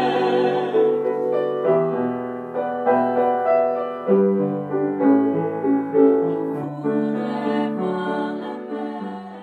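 Piano music: slow chords and single notes moving step by step, fading out near the end.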